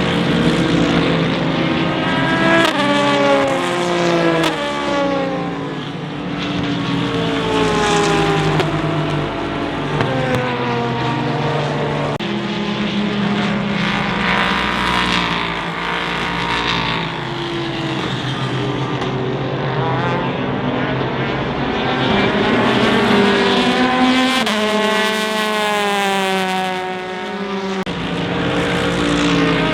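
Endurance race cars passing one after another at speed. Their engines rev up in pitch through the gears, and the pitch drops as each car goes by.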